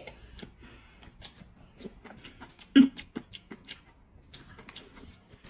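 Eating at a table: soft chewing and small scattered clicks of chopsticks against bowls, with one short, louder mouth sound a little before the middle.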